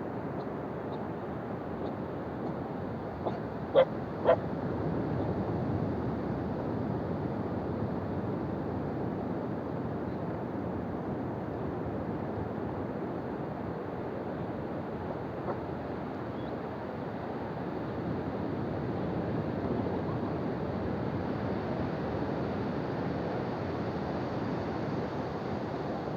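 Ocean surf washing steadily on the shore. About four seconds in, two short, sharp pitched calls sound half a second apart, louder than the surf.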